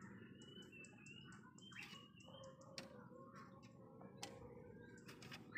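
Near silence: quiet yard ambience with a few faint clicks and taps and faint high chirps of birds in the first half; the rooster does not crow.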